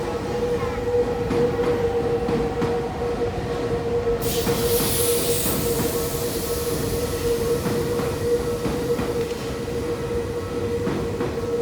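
Tokyu train rolling slowly over a level crossing, its wheels clicking irregularly over the rails while the crossing's warning signal sounds as a steady tone. A burst of air hiss starts about four seconds in and fades away.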